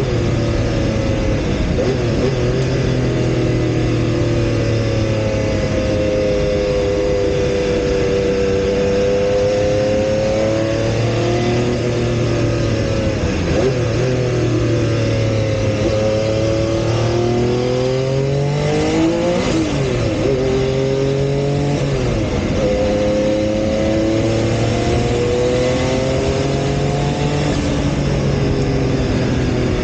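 Porsche 956 Group C race car's twin-turbocharged flat-six heard from inside the cockpit at racing speed, its pitch climbing and dropping over and over as it is driven through the gears, with a steady rush of wind and road noise underneath. The deepest drops come about 13 and 19 seconds in, each followed by a long climb.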